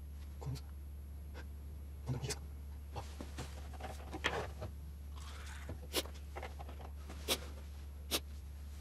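Quiet handling sounds over a steady low hum: light rustling and scraping, then a few separate sharp clicks in the second half.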